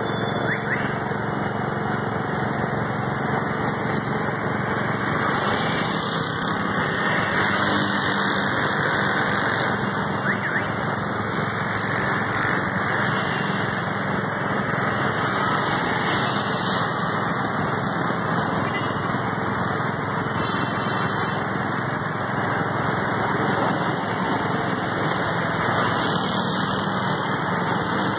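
Steady running noise of a motorcycle being ridden along a road: the engine with a constant rush of wind and road noise over it.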